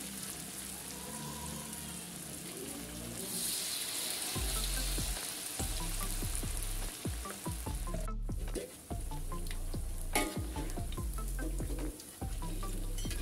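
Vegetable fritter batter deep-frying in hot oil in a wok: a steady sizzle with scattered small pops. A sharp knock comes about ten seconds in.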